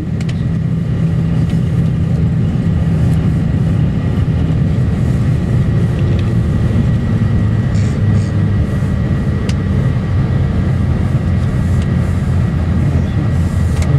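Steady low engine rumble of a vehicle under way, with a faint constant high whine above it.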